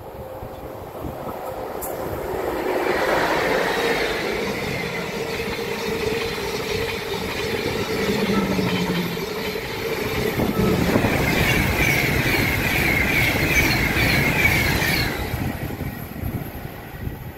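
Class 92 electric locomotive and its rake of Caledonian Sleeper coaches passing at speed. The rush of wheels on rail builds over the first few seconds and stays loud while the coaches go by, with a quick rhythmic clatter of wheels over rail joints in the last few seconds before it fades away.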